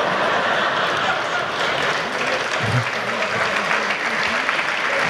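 Theatre audience applauding, a steady dense clapping with laughter mixed in.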